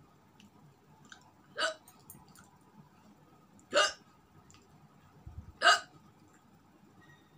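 A woman hiccuping three times, about two seconds apart, each hiccup louder than the last. The hiccups are brought on by eating very spicy food.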